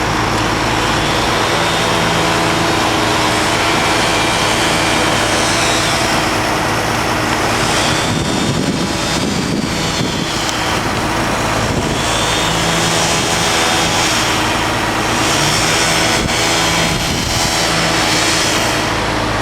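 Construction machinery engine running steadily with a low, even hum, turning rougher and noisier for a few seconds in the middle.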